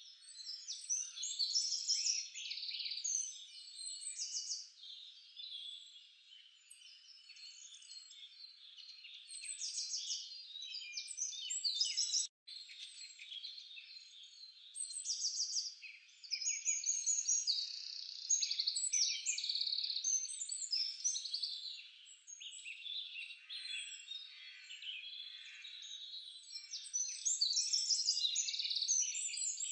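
A dense chorus of small birds chirping and trilling at once: many short, high calls overlap throughout, rising and falling in loudness, with a brief cut-out about twelve seconds in.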